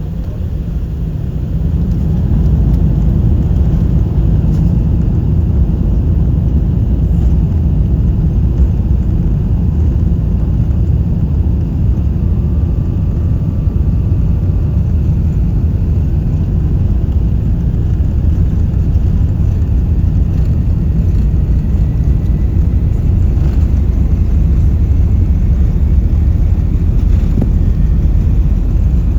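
Airbus A380 heard from inside the cabin during the takeoff roll: its engines at takeoff thrust and the wheels on the runway make a steady low rumble, which swells over the first two seconds and then stays loud.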